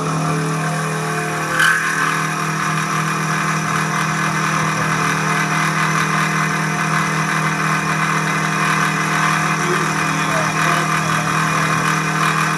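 Milling spindle motor of a small home-built CNC lathe starting up and running steadily, its rotary cutter working into a steel collet nut. A short sharp click comes about a second and a half in.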